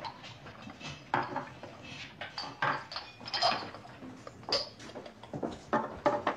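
Cups and dishes clinking and clattering as they are handed round and set down, a quick, irregular run of sharp clinks.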